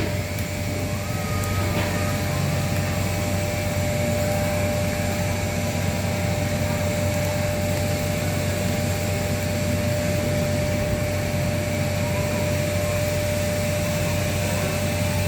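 Steady electrical machine hum: a low mains drone with a thin steady higher tone over a constant rushing noise, as from a 400 A welding machine running with its transformer coil humming.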